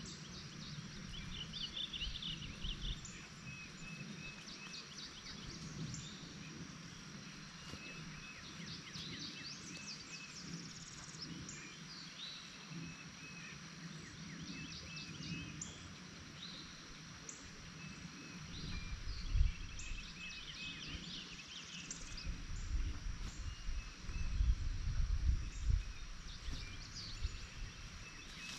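Songbirds singing and chirping in short repeated phrases and trills over a steady outdoor hiss. Irregular low rumbles come in about two-thirds of the way through and grow louder toward the end.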